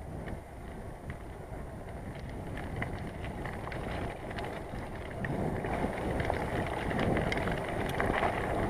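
Bicycle being ridden along a path: rolling tyre noise and wind buffeting the microphone, with many small clicks and rattles. It grows louder about five seconds in.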